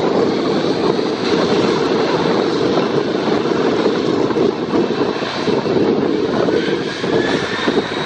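Jet engines of a Boeing 767-300 freighter running steadily as the aircraft rolls along the runway, with a faint rising whine near the end.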